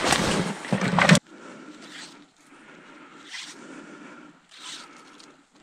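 Loud rustling and scraping of spruce branches brushing past clothing and the camera, cutting off abruptly about a second in, then a slow run of crunching footsteps in snow.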